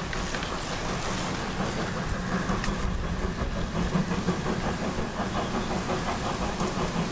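Polish 0-6-0 tank steam locomotive PKP 4015 "Karel" working as it pulls away from a station, its exhaust running steadily and growing slightly louder as it approaches.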